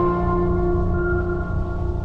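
Background music with slow, long held notes.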